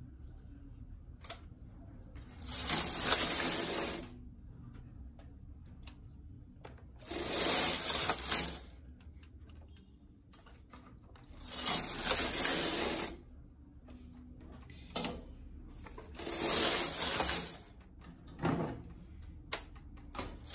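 Knitting machine carriage slid back and forth across the metal needle bed, four passes of about a second and a half each, with single needle clicks in the gaps between passes. Short-row (partial) knitting: one needle is pushed forward to hold before each pass.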